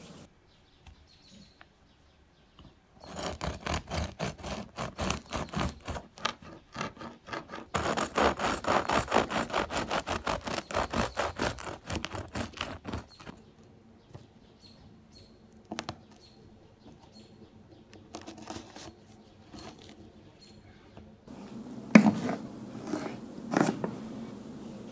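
A serrated bread knife sawing back and forth through a crusty loaf of brown bread in quick, rhythmic scraping strokes for about ten seconds. Near the end, a knife cuts through a carrot with two sharp knocks on a wooden cutting board.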